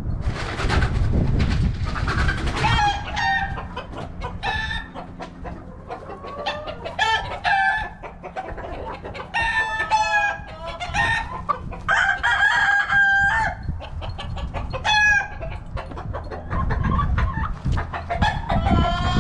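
Chickens calling over and over, mostly short squawks with a few drawn-out calls, and a low rumble at the start and again near the end.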